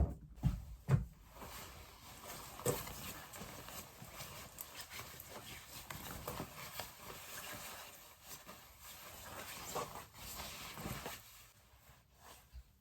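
Rustling and handling noise with scattered light clicks and knocks over a steady hiss, dropping away about eleven seconds in.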